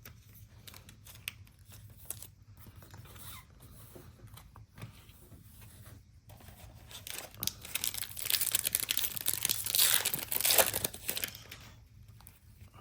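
Foil trading-card pack wrapper being torn open and crinkled, faint rustling at first and louder from about seven seconds in until near the end.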